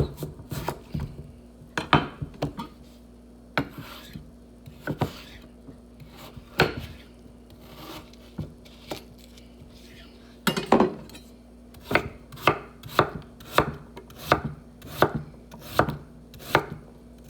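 Knife chopping vegetables on a cutting board: scattered cuts at first, then steady chopping at about two strokes a second from about ten seconds in. A faint steady hum runs underneath.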